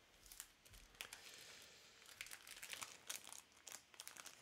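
Faint crinkling and crackling of plastic packaging as trading cards and card sleeves are handled, in quick irregular crackles that thicken about a second in.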